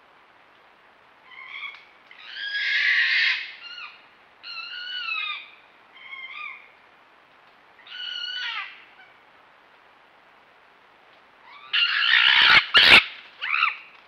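Red fox calling: a series of about six short, pitched barks spaced unevenly over several seconds, the loudest cluster near the end. Two sharp clicks come in among that last cluster.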